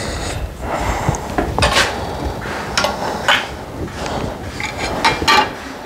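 A few scattered clinks and knocks of paint cans and tools being handled on a workbench.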